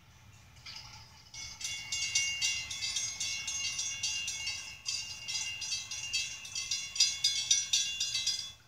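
Railroad grade-crossing bells ringing rapidly while the crossing gates rise after the train has cleared. The ringing starts about a second and a half in and stops abruptly just before the end, as the gates come fully up.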